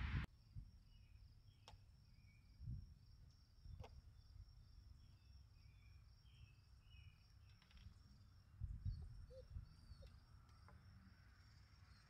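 Near silence: faint outdoor ambience with a steady high-pitched insect trill, broken by a few soft clicks and low thumps.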